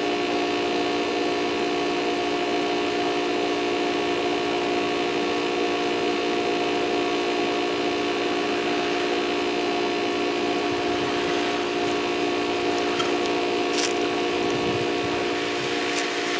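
A large electric drill running at a steady pitch as its masonry bit grinds into brick and concrete block, with a few faint ticks near the end.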